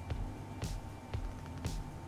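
Background music with a steady beat: low drum thumps about twice a second and a hissy high stroke about once a second.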